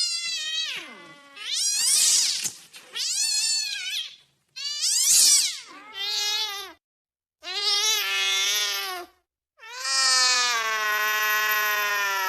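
Angry domestic cat yowling: a string of about six drawn-out, wavering calls that rise and fall in pitch, separated by short silences. The last call is held for about three seconds.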